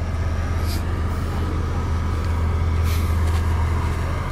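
Steady low engine hum with a faint noisy haze above it, and a couple of faint ticks about a second in and near three seconds.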